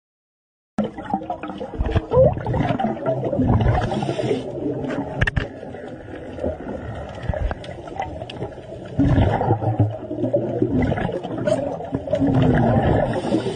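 A loud, low animal-like roaring sound with a wavering pitch. It starts suddenly about a second in and swells twice, dipping quieter in the middle.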